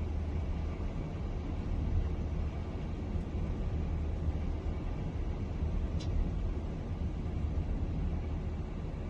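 MD-11 airliner's engines and rushing air: a steady low rumble during a crosswind landing attempt.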